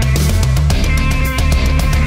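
Loud rock music with guitar and drums keeping a steady beat.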